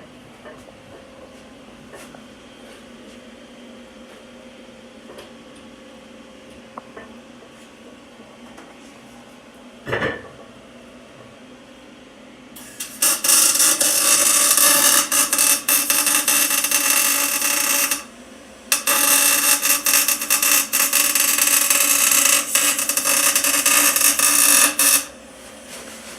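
MIG welder arc welding up a differential: a loud, dense crackle in two runs of about five and six seconds with a short break between. Before it there is a low steady hum and a single knock.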